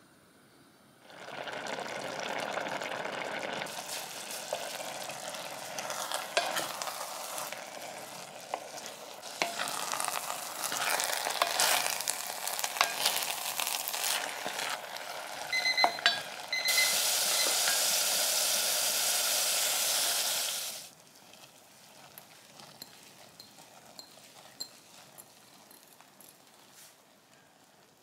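Rice and stock bubbling hard in a cast iron Staub pot, with a wooden spatula stirring and scraping along the bottom in many small clicks and a loud steady sizzling hiss for about four seconds in the middle. In the last third the sound drops to quiet, light clicks.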